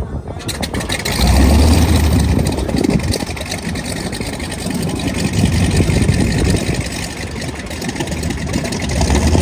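Piston engine of a propeller aircraft running, louder about a second in and again near the end.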